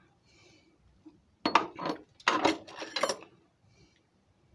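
Small metal lathe tools and parts clattering and clinking as they are rummaged through and handled: a quick run of sharp knocks between about one and a half and three seconds in.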